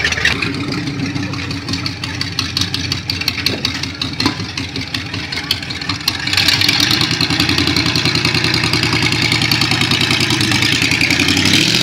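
Ford flathead V8 running through a short open side exhaust pipe. It idles steadily at first, then runs louder about six seconds in as the hot rod pulls away.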